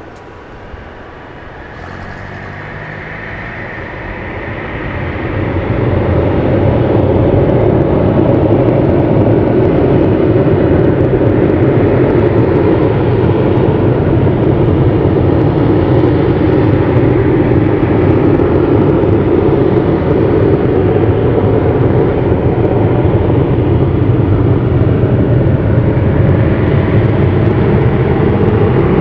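Tupolev Tu-22M3 bomber's twin Kuznetsov NK-25 turbofans spooling up over the first six seconds or so, then running steady at high power while the aircraft holds in place on the runway.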